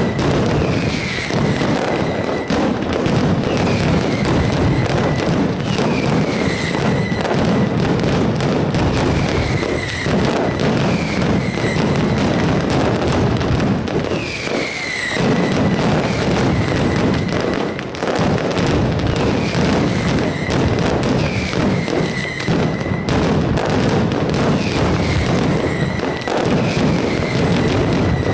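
Mascletà firecracker barrage: a dense, unbroken run of firecrackers going off in rapid succession. A whistle falling in pitch sounds through it about every two seconds.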